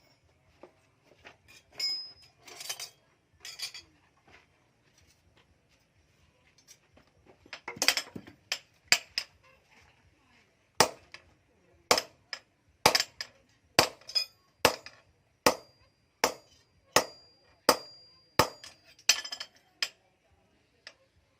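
Hand hammer striking hot steel on an anvil while forging an axe head: scattered light clinks at first, then from about halfway a steady run of loud strikes, a little over one a second, some leaving a short metallic ring.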